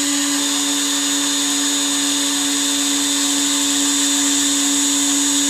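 Small CNC router spindle running at a steady pitch with a high whine while its broken engraving bit etches plexiglass.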